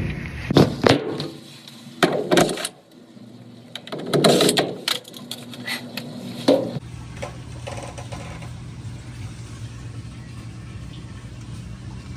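A few clunks and knocks from handling the Maytag commercial washer, then from about seven seconds in its drive motor runs with a steady hum. The motor pulley is stripped and the belt worn, which keeps the drum from getting up to speed.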